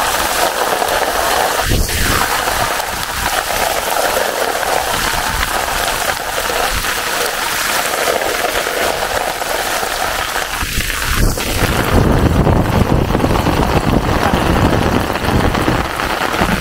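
Heavy rain pouring onto open water, a steady dense hiss of downpour. There are bursts of low rumble about two seconds in and again over the last few seconds.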